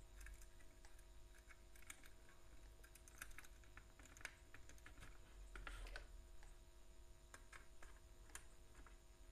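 Faint, scattered light clicks and rustles from a wire being fitted onto the screw terminals of a plastic electrical switch board.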